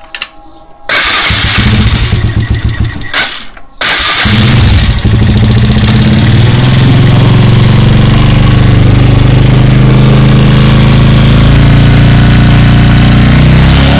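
Motorcycle engine starting about a second in, faltering briefly, then catching just before four seconds and running steadily in gear, driving the newly shortened and tensioned chain and the rear wheel.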